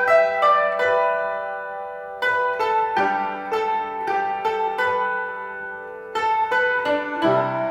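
Background instrumental music: a melody of plucked string notes, each note ringing and fading, with a brief lull about two seconds in.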